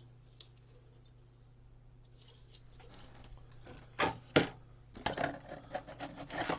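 Hands working on the stripped-down stimulator on a workbench over a steady low electrical hum: two sharp knocks about four seconds in, then irregular light clattering and rubbing of parts and tools.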